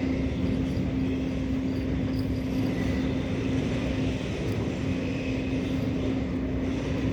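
Steady low mechanical drone with a constant hum, like an engine running without change.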